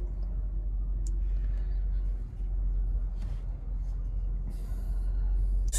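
Steady low rumble inside a parked car's cabin, with one faint click about a second in.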